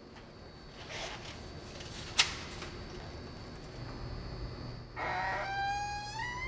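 A sharp click about two seconds in. From about five seconds, a wavering, slowly gliding synthesized tone from the film's score.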